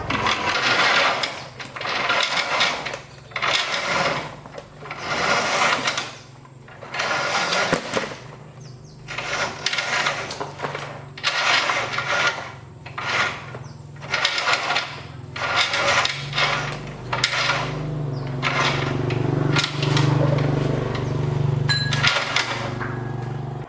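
Workshop tool work on metal: rasping or grinding strokes repeated about once a second over a steady low motor hum, which grows louder in the last several seconds.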